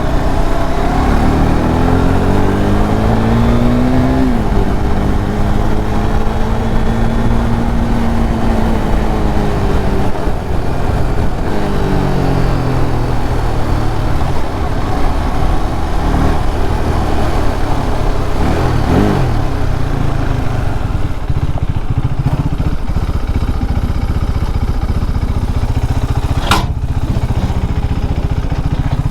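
KTM RC 390's single-cylinder engine running under way, fitted with a freshly installed replacement engine. The revs climb over the first few seconds, hold, then drop near ten seconds and rise and fall again around nineteen seconds, over a steady rush of wind on the microphone. A short sharp click comes near the end.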